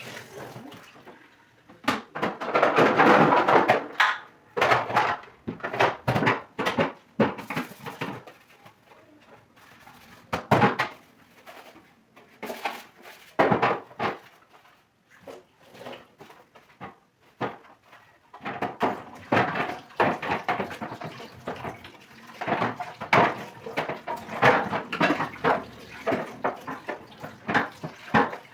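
Dishes and kitchen items clinking and knocking as they are handled and washed, with stretches of running water.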